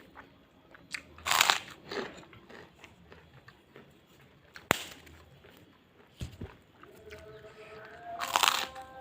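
Close-up eating sounds: two loud crunching bites into crisp food, about a second in and near the end, with quieter chewing between them. A single sharp click about halfway through.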